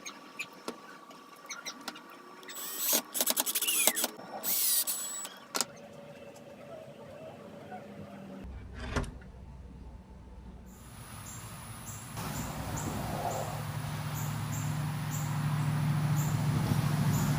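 Power drill run in three short bursts, with clicks and knocks of handling around it. After a cut, a steady low hum grows louder.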